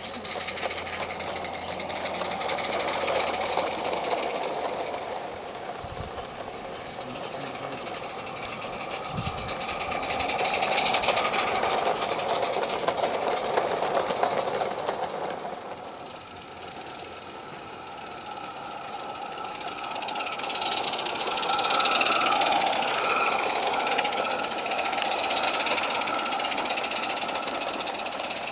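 Small live-steam garden-railway train running on its track, a quick, even clatter of wheels and wagons that grows louder twice as the train comes close to the microphone.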